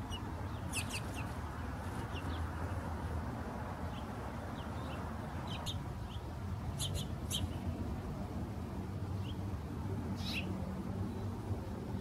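Small songbirds giving short, high chirps in scattered clusters, the loudest about seven and ten seconds in, over a steady low background rumble.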